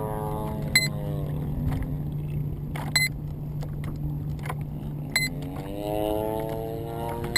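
Model aircraft motor dropping in pitch as the throttle comes off, holding a steady hum, then rising again near the end as the throttle is pushed back up. A short, sharp beep sounds about every two seconds over it.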